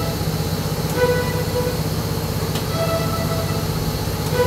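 Animatronic pneumatics cycling the head-tips-left movement: a valve clicks three times, about every second and three-quarters, each click followed by a brief pitched tone, over a steady low hum.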